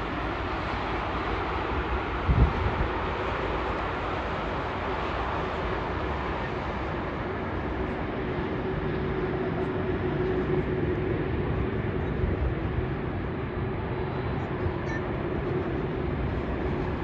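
Airbus A380's jet engines running at taxi power: a steady rushing noise with a faint hum, and a low thump about two seconds in.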